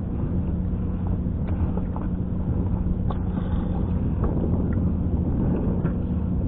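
Outboard motor idling steadily, a constant low hum, with wind noise on the microphone and a few faint clicks.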